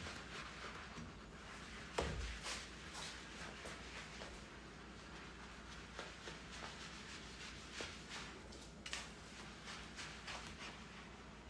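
Faint scratchy strokes of a coating applicator being wiped across windshield glass, with a single knock about two seconds in.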